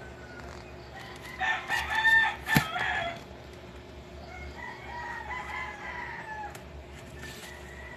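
Two animal calls over a steady low hum: a loud call in several parts lasting about a second and a half, with a sharp knock in the middle, then a fainter, longer call that falls in pitch a couple of seconds later.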